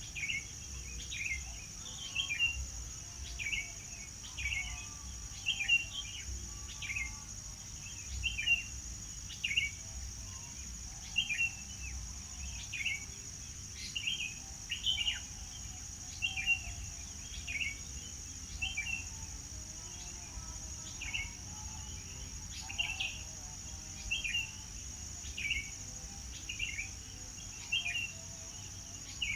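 A songbird repeating a short chirping call about once a second, each note dropping quickly in pitch, over a steady high-pitched drone.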